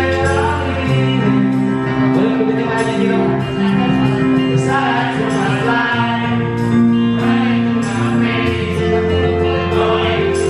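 Live band music: a man and a woman singing a slow song together over a band, with low bass notes held for a few seconds at a time.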